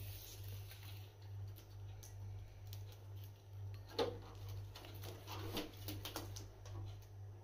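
Light clicks and knocks of parts being handled, with one sharper knock about four seconds in and a short cluster of smaller ones after it, over a steady low hum.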